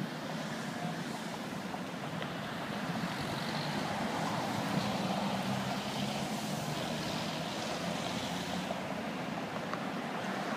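Steady road traffic noise from cars and trucks on a busy road, slightly louder from about three seconds in.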